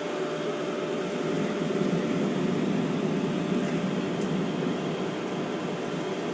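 WoodGun E100 wood gasification boiler running with a steady hum and the rumble of its gasification burn, which grows louder about two seconds in.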